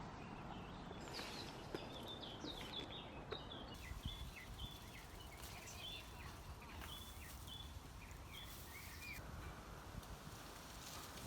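Small songbirds chirping, a quick run of short high notes that stops near the end, over a faint steady low outdoor rumble.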